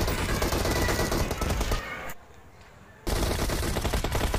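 Automatic gunfire from a mobile battle-royale shooter game, played through a phone's speaker: rapid shots that stop for about a second midway, then start again.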